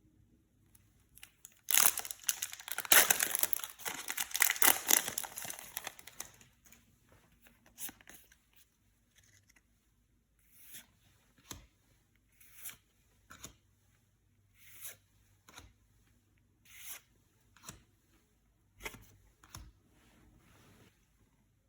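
A Yu-Gi-Oh booster pack's foil wrapper being torn open, a loud tearing for about four seconds. It is followed by a string of short crinkles and soft taps about a second apart as the wrapper and cards are handled.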